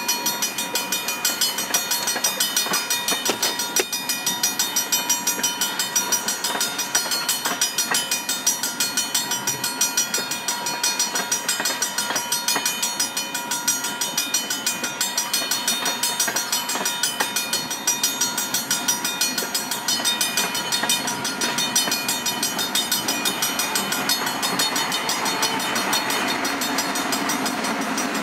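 Freight train of tank cars rolling past a grade crossing, steel wheels clicking over the rail joints, with the crossing signal's bell ringing in a fast, even rhythm throughout. Near the end a diesel locomotive's engine grows louder as it comes alongside.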